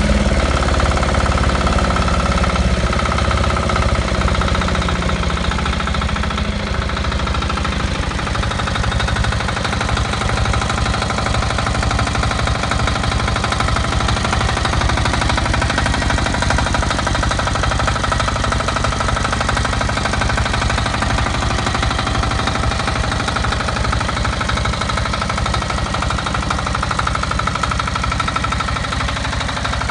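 Pressure washer running steadily with a fast, even rattle, its pump sucking water from a bucket through a double strainer.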